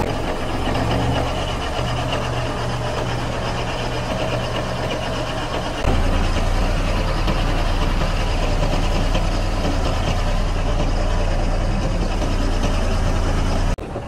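Large diesel engine of a Komatsu bulldozer idling steadily, a low drone that gets louder about six seconds in.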